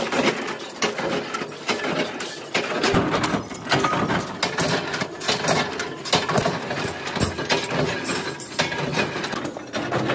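Small punch press working steel discs, a dense, irregular run of metal clanks and clicks as the die strikes and the metal pieces knock together.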